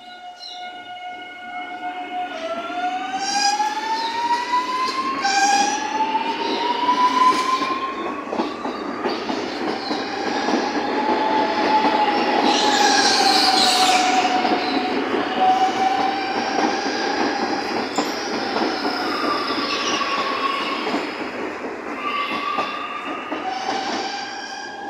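CPTM Série 7500 electric multiple-unit train pulling away and running past: its electric traction whine rises in pitch in steps over the first several seconds as it accelerates. Then the wheels rumble on the rails under a wavering whine, loudest about midway as the cars pass close.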